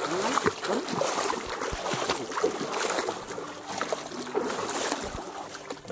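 Water splashing and trickling, with many short irregular splashes. Faint music with steady held notes comes in about halfway through.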